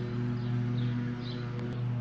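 Background music with steady held low notes, with a few faint high chirps over it.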